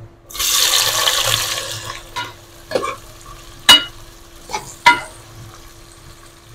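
Sliced onions hitting hot oil in a metal pressure cooker, a loud sizzle that fades over about two seconds. Then a metal ladle stirring them, with five sharp knocks against the pot.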